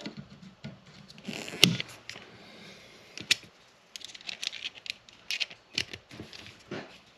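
Side-cutting pliers snipping electrical wire: a sharp click about a second and a half in and another near the middle, followed by a run of small clicks and scrapes as the wire ends are handled.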